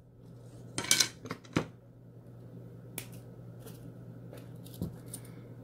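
Light handling clicks and rustles of wire against a wooden ruler, then a single sharp snip about three seconds in as flush cutters cut through 18-gauge wire, over a faint steady low hum.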